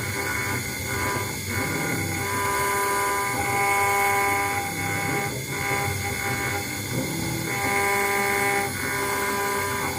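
CNC router spindle engraving a brass plate: a steady whine made of several tones that swell and fade every second or two as the cutter moves through the metal.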